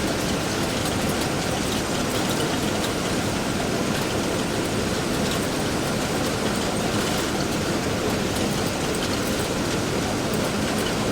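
Construction-site ambience: a steady, dense machinery rumble with faint light ticks over it and no single event standing out.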